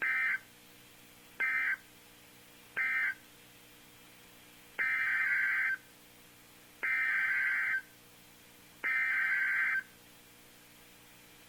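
Emergency Alert System SAME data bursts over NOAA Weather Radio, a harsh buzzy warble. Three short bursts about a second and a half apart are the end-of-message code for the warning just read. Then come three longer bursts, about a second each, roughly two seconds apart: the coded header of the next alert.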